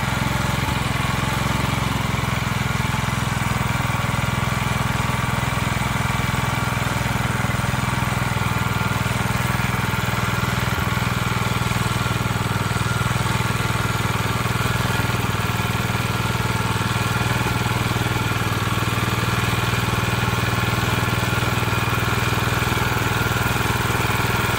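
Walk-behind power tiller's engine running steadily and loud as it tills soil in a field.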